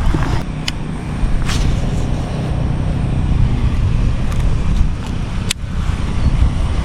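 Wind buffeting the microphone: a steady low rumble, with a few short clicks, the sharpest about five and a half seconds in.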